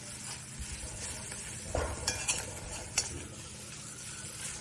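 Onions, tomato and cashews sizzling in a black iron kadai as a steel spoon stirs them, with a few sharp scrapes and taps of the spoon against the pan.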